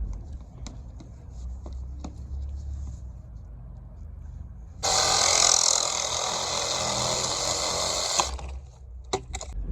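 A power tool runs steadily for about three and a half seconds, starting and stopping abruptly, over a low engine rumble, followed by a few sharp clicks.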